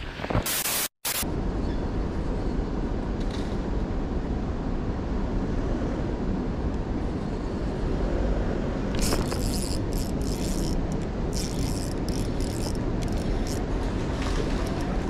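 Steady wind rumble buffeting the microphone, with a run of sharp clicks and rattles from about nine seconds in.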